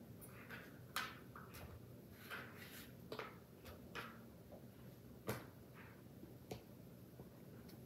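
Chef's knife cubing a block of pepper jack cheese, with faint, irregular knocks as the blade goes through and strikes the cutting board, the loudest about five seconds in.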